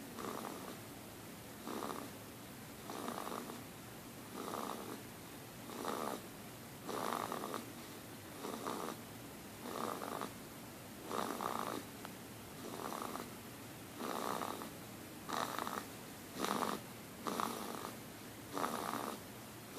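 A small pet snoring in its sleep: short, rasping snores in a steady rhythm, about one every second or so.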